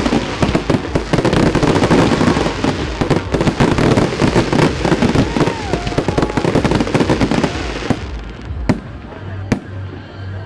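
Fireworks display: dense, rapid crackling and banging of many shells bursting at once, thinning out about eight seconds in to a few separate bangs.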